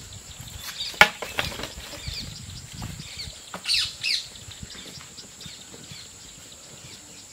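Dry firewood sticks knocking together as they are gathered, with one sharp knock about a second in, while small birds chirp now and then.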